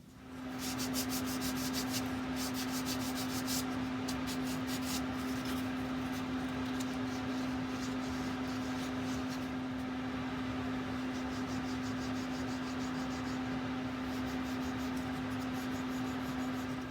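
Hand sanding of a black-polished wooden clock case part: continuous abrasive rubbing that cuts back the black polish finish so it is smooth again, over a steady electric hum.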